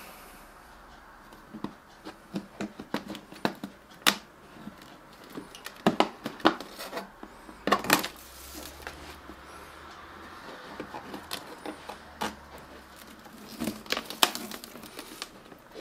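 Scattered clicks, taps and rustling from hands working on a plastic container, fitting self-adhesive velcro strips and window insect mesh to its walls.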